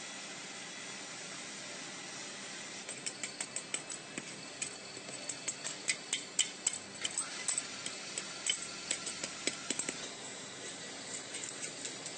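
Quick, irregular light taps and clinks of a hand tool knocking at a packed sand-casting mould and the freshly cast metal pieces in it. The tapping starts about three seconds in and thins out after about ten seconds.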